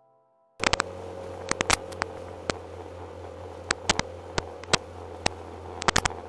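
A dash camera's own microphone cuts in about half a second in with a steady low hum and irregular sharp clicks and knocks: the camera and its mount rattling over the road surface while riding.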